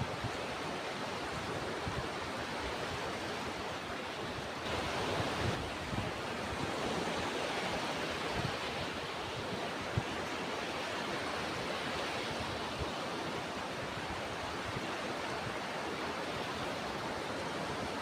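Ocean surf washing steadily, with a brief swell about five seconds in and a few low thumps of wind on the microphone.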